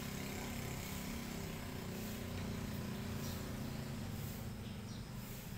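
A steady low drone of a motor running, unchanging throughout. A few faint ticks in the second half come from a cat eating off a plastic plate.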